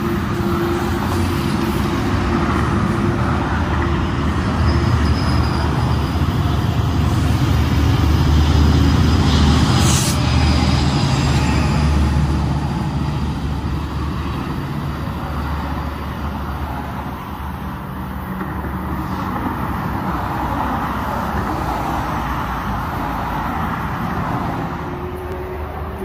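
A Metrolink commuter train of bilevel coaches and a diesel locomotive running past on the track: a steady rumble that is loudest about a third of the way through, then eases off, with one short sharp click near the loudest point.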